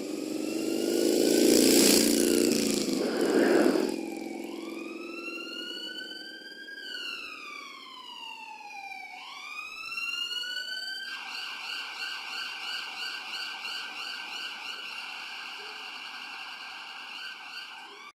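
Siren sound effect: after a loud rushing swell in the first few seconds, an emergency-vehicle siren wails in long rising and falling sweeps, switches to a rapid warble about eleven seconds in, and cuts off suddenly at the end.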